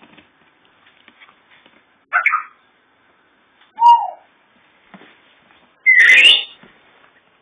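Yorkshire terrier puppies squeaking: three short, high-pitched squeals, the second falling in pitch and the last the loudest, about six seconds in.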